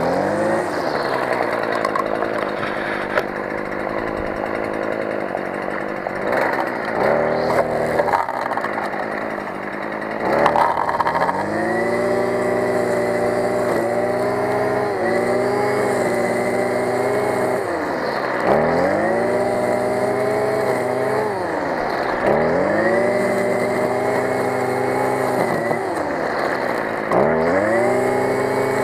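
Stihl FS 55 brush cutter's two-stroke engine running at high revs while its nylon line head cuts tall grass. For the first several seconds the line thrashing through the grass is as prominent as the engine. After that the steady engine note dominates, its speed dipping and picking up again several times.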